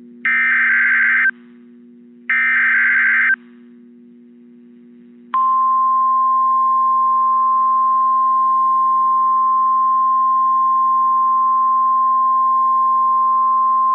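NOAA Weather Radio EAS alert: two buzzing SAME digital header bursts, about a second each and a second apart (the last two of the three-burst header), then about five seconds in the steady 1050 Hz warning alarm tone comes on and holds, announcing a tornado warning. A low steady hum from the radio runs underneath.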